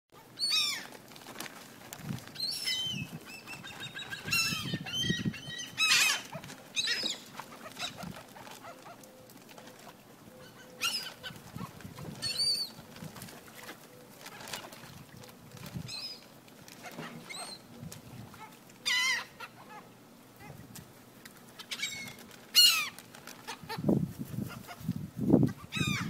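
Seagulls calling overhead: many short, high-pitched cries scattered irregularly throughout. A low rumble comes in near the end.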